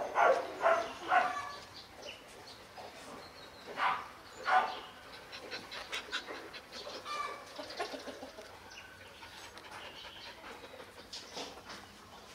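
Short animal calls: a few in the first second, two louder single calls about four seconds in, then faint scattered chirps.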